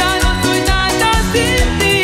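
Live cumbia band music at full volume: a steady, danceable beat from the percussion section under gliding melody lines, with no lyrics sung.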